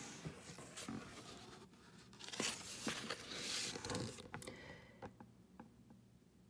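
Pages of a hardcover picture book being turned by hand: paper swishing and rustling for a few seconds, then a few light clicks as the book is settled open.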